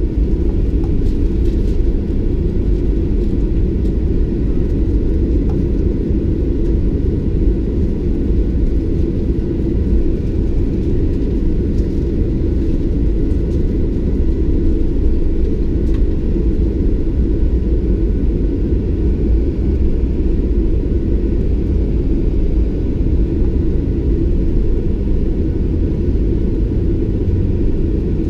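Cabin noise of a Boeing 737-800 taxiing: a steady low rumble from its CFM56-7B engines at taxi power and the aircraft rolling along the taxiway, with a faint steady whine above it.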